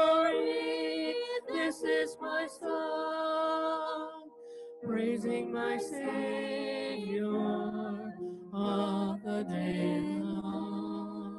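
Unaccompanied voices singing a hymn over a video call, long held notes in slow phrases, with a brief break about four seconds in and the sound fading out near the end.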